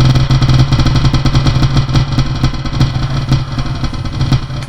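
A small engine running steadily at idle, with a fast even putter over a low hum.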